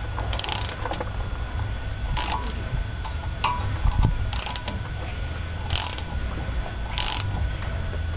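Hand ratchet clicking in short bursts about once a second as a metric bolt is turned in a brake rotor's threaded removal hole, over a steady low hum.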